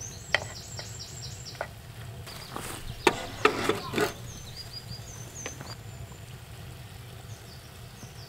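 Small birds chirping in short repeated phrases of quick high falling notes, over a steady low hum, with a cluster of sharp knocks and clatters about three seconds in.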